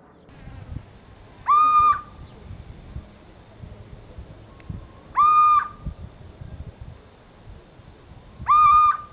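Little owl calling three times, each call a short hoot that rises and then holds for about half a second, some three to four seconds apart. A steady high insect sound runs underneath.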